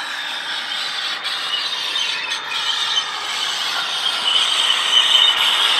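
Model Euro Dual locomotive's DCC sound decoder playing a Class 88 diesel-mode engine sound through its small speaker, mixed with the running noise of the model's wheels and drive on the track. It gets louder as the locomotive nears, loudest about five seconds in.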